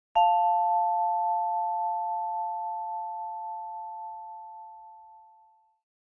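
A single struck, bell-like chime with two close pitches ringing together, its brighter overtones dying within a second while the main tone fades slowly out over about five seconds.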